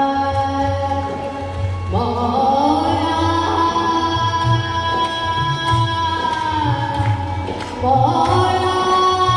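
A woman singing unaccompanied-style long phrases into a microphone, each sliding up into a long held note, with a new phrase starting about two seconds in and another near the end. A hand drum beats low underneath.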